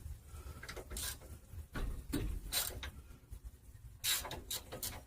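Wrench and metal brake parts handled while the bolts are taken out of a rear brake assembly: irregular clicks, scrapes and rustles, a few of them louder.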